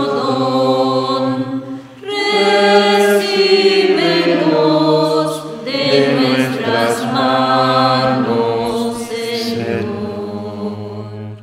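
Voices singing the offertory hymn of a Catholic Mass in sustained phrases, with short breaks about two seconds in and near six seconds. The final phrase fades out at the very end.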